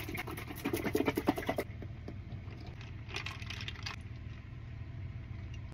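A carton of coconut milk shaken hard, a quick rattling slosh that stops about a second and a half in. About three seconds in comes a brief scraping clink of a straw stirring ice in a glass.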